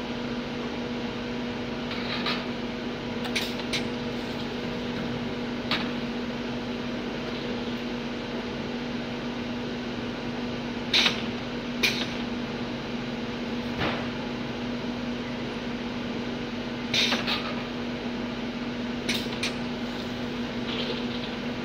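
Bottle filling machine and conveyor running with a steady hum, broken by occasional sharp clicks and knocks as empty plastic bottles are handled on the line. The loudest two knocks come about half way through.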